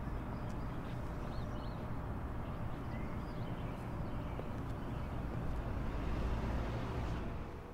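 Outdoor ambience: a steady low rumble, with a few faint bird chirps about one and a half seconds in and again around three seconds.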